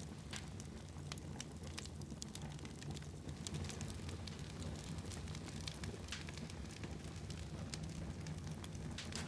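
Wood fire burning in a fireplace: a steady low rumble of flames with irregular sharp pops and crackles.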